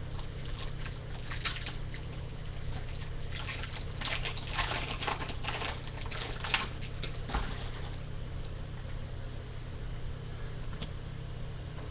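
Foil wrapper of a baseball card pack being torn open and crinkled, a dense crackling for about the first eight seconds. After that come quieter, sparse ticks as the cards are slid through the hands, all over a low steady hum.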